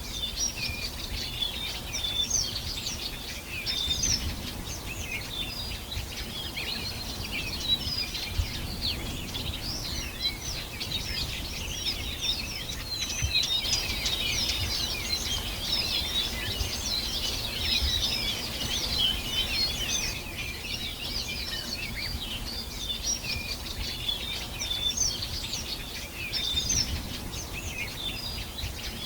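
Many small birds chirping and singing at once, a dense, continuous chorus of short high chirps and trills, over a low background rumble.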